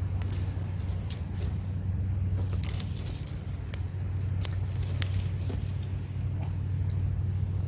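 Wood fire crackling, with frequent sharp snaps and pops and a dense patch of crackling about three seconds in, over a steady low rumble of surf.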